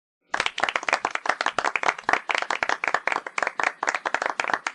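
Rapid hand clapping, a dense run of sharp claps at about ten a second, starting just after the beginning and cutting off suddenly.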